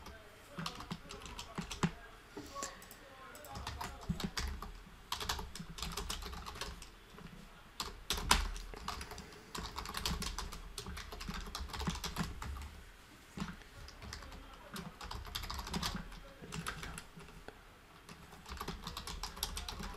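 Typing on a computer keyboard: quick runs of keystrokes broken by short pauses, with one louder key press about eight seconds in.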